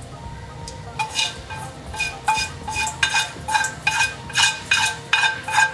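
A utensil knocking and scraping against a metal frying pan while carbonara is served out onto a plate. It is a quick run of ringing metallic clinks, about three a second, starting about a second in.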